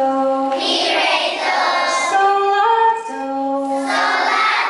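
A group of first-grade children singing together, holding long notes that move in steps.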